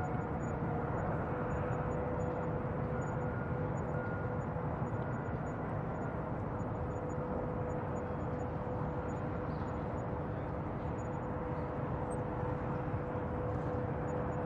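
Bayside ambience field recording: a steady low rumble with a faint steady hum over it, like distant engines or traffic carrying across the water.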